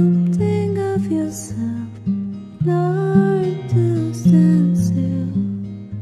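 Instrumental break of an indie pop song: guitar-led backing with deep bass notes, a melody line and brief high hissy accents, no vocals.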